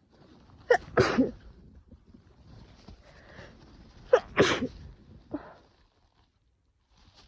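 A woman sneezing twice, about three seconds apart, each sneeze a short sharp catch and then a loud burst: a sneezing fit from a cold coming on.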